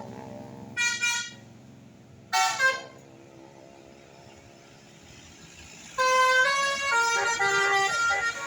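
A bus's telolet horn, a multi-tone air horn. It gives two short toots, then from about six seconds in plays a quick melody of changing notes.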